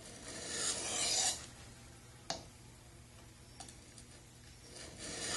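Steel knife blade, held on a 12-degree wedge, stroked across a diamond sharpening plate with a dry rasping scrape: one stroke in the first second or so and another starting near the end, with a sharp click between them. These are passes on the blade's second side to bend the wire edge back.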